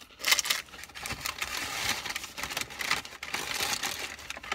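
Small paper food bag crinkling and rustling as it is handled and folded, a rapid, continuous run of crackles.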